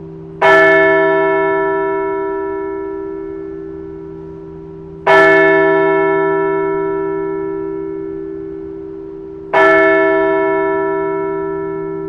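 A large bell struck three times, about four and a half seconds apart. Each stroke rings out with many overtones and fades slowly, and the low hum carries on between strokes.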